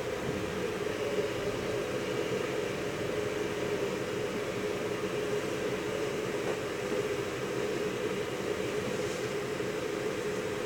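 Cabin noise inside a PESA ATR220 (Atribo) diesel multiple unit running at speed: a steady drone of engine and wheels on rail, with one hum holding its pitch throughout.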